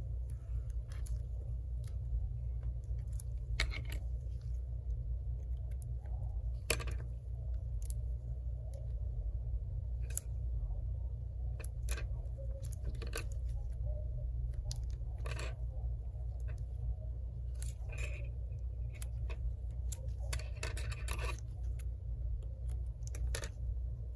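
Scattered light clicks, taps and scrapes of double-sided adhesive tape being peeled and pressed along an iPad's frame, over a steady low hum.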